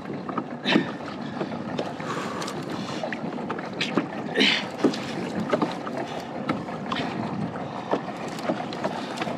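Water lapping and slapping against a kayak hull on the open ocean, with wind on the microphone: a steady rush broken by irregular short knocks and splashes.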